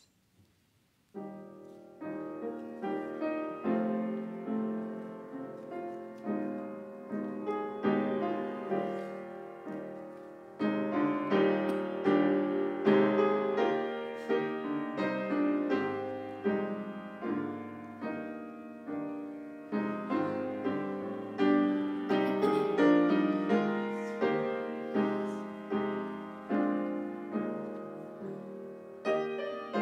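Solo piano playing a gentle instrumental piece, each note struck and fading away. It begins about a second in.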